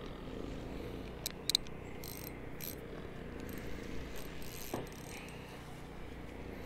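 Handling of a fishing rod and spinning reel: two sharp clicks about a second and a half in, then light scattered mechanical ticks over a faint steady outdoor hum.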